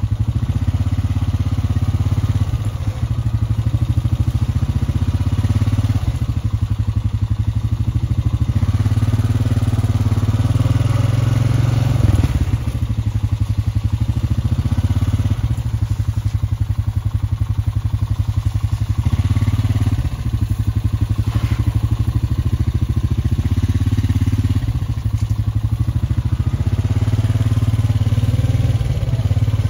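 A motor engine running steadily close by, with a low, rapid pulsing throughout.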